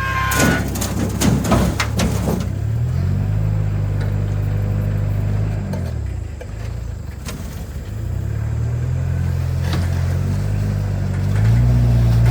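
A truck engine running, revving up and easing off several times. A few knocks come in the first couple of seconds.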